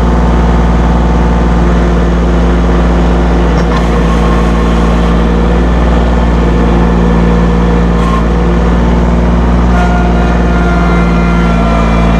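Massey Ferguson 1825E compact tractor's Iseki 1.49-litre engine running steadily at high revs, up at PTO speed, while the loader hydraulics work both functions at once.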